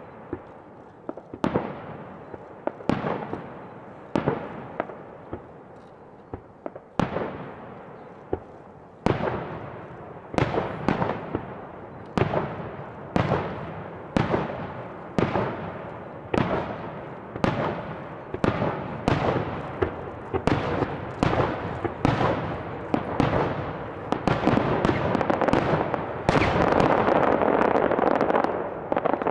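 Aerial fireworks bursting: sharp bangs, each trailing off in a long echo, about one a second and coming closer together. Near the end they merge into a dense run of rapid crackling bangs.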